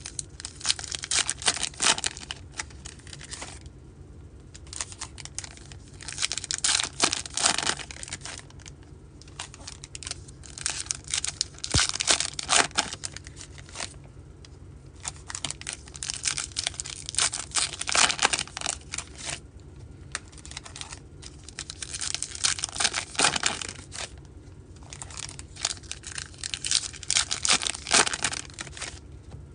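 Foil wrappers of baseball card packs being torn open and crinkled, in about six bursts of crackling a few seconds apart.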